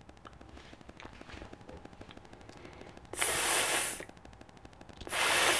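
A woman's sustained voiceless "s" sound, held as a steady hiss of air with her lips spread and no voice: about a second long three seconds in, then a longer one about two seconds later.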